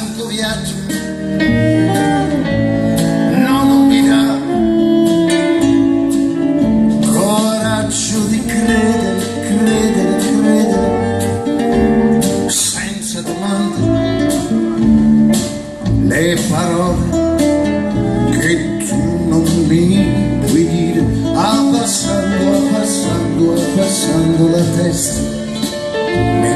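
Live band playing a song, with a man singing over guitar, keyboard, double bass and drums.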